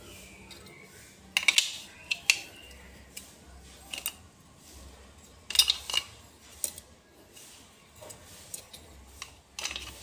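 Hard plastic clicks and clacks from a surface-mounted power socket's front and back box being handled and pressed together, in several short clusters a few seconds apart.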